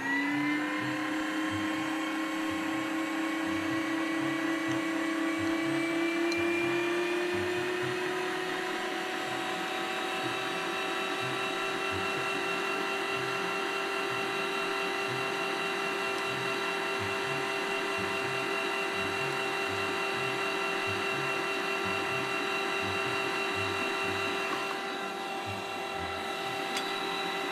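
Electric meat grinder's motor switched on, whining up in pitch as it gets to speed and then running steadily. It is turning its feed screw on a light load of soft banana and yogurt.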